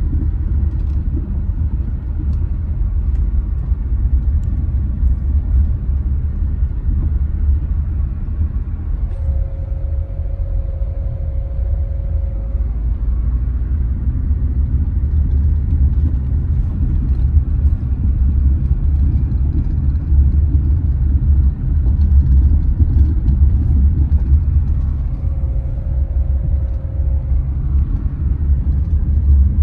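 Car driving along with a steady low road rumble from the tyres and engine. A faint held tone sounds twice, about ten seconds in and again near the end.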